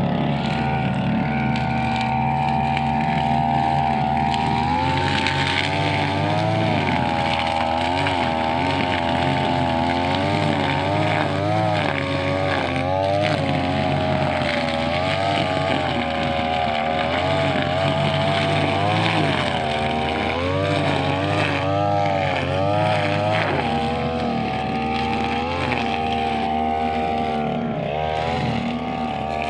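Brushcutter's small two-stroke engine running continuously at high revs. Its pitch rises and dips repeatedly as the throttle and the cutting load change, and it is steadier near the start and the end.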